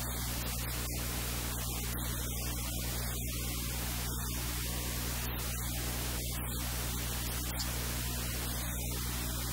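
Steady static hiss with a low electrical hum underneath, unchanging throughout.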